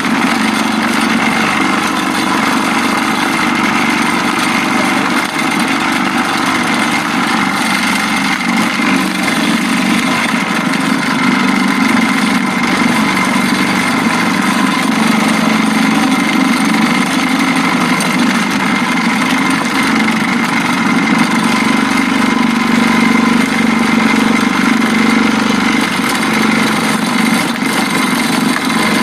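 Multi-purpose chopper machine for grinding young papaya into chicken feed, its engine running at a steady, unchanging speed.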